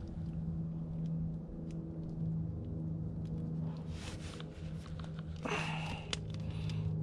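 Hand crimping tool squeezing a butt connector onto a wire, with a few faint clicks and two short rustles, over a steady low hum.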